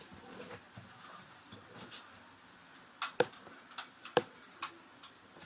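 Several sharp clicks and knocks from small objects being handled and set down, about five in quick succession in the second half, two of them louder.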